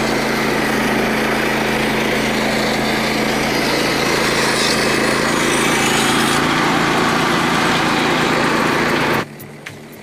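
Frontier OS27 portable bandsaw mill's gasoline engine running at a steady speed while the band blade cuts through a wooden shingle block. About nine seconds in, the sound drops away abruptly, leaving only faint ticks.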